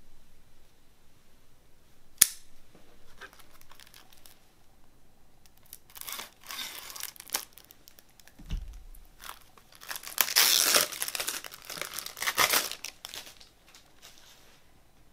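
Cellophane shrink-wrap on a plastic CD jewel case being torn and crinkled off, in rustling bursts with the longest, loudest crinkling about ten seconds in. A single sharp click comes about two seconds in.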